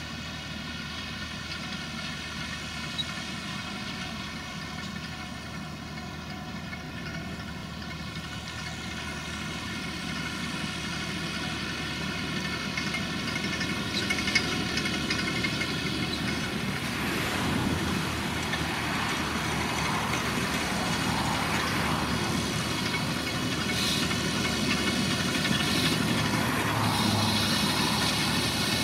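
Tractor pulling a Krone round baler as it bales grass, the engine and baler running steadily with an even whine. It grows louder as the rig draws closer and turns rougher about halfway through.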